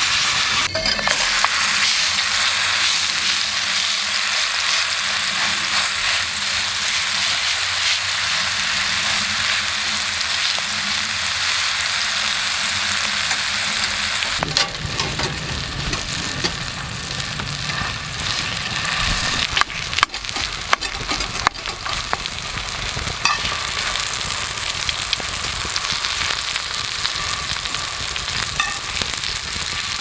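Thick steak searing in a black iron skillet over a wood fire, a steady sizzling hiss, with a few sharp clicks a little past the middle.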